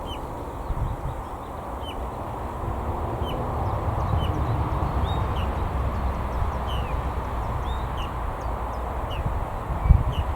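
A small bird calling over and over, a short high falling note roughly once a second, over a steady low rumble such as wind on the microphone. A single thump near the end.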